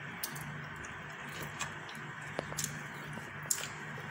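A few scattered light clicks and taps over a steady low hum.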